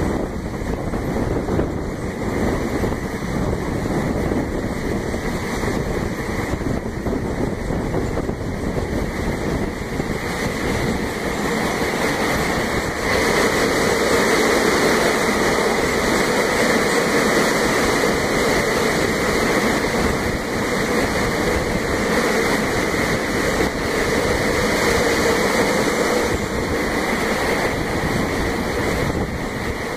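Train running along the track, heard from aboard: a steady rumble of wheels on rail mixed with wind on the microphone. About 13 s in the noise grows louder as the train runs through a tunnel, and it eases again near the end as it comes out.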